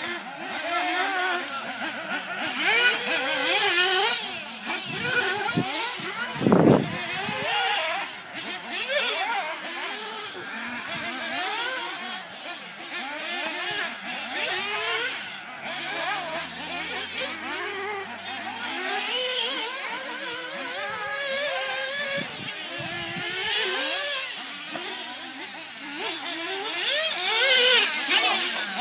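Radio-controlled off-road buggy driving on a dirt track, its motor revving up and down quickly as it accelerates and slows through the corners and jumps. One loud thump comes about seven seconds in.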